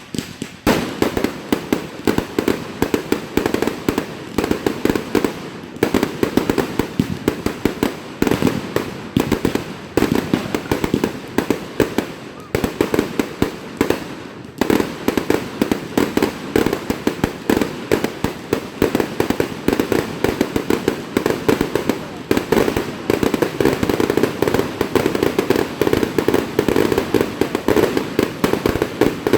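Fireworks going off in a rapid, continuous barrage of pops and bangs that doesn't let up.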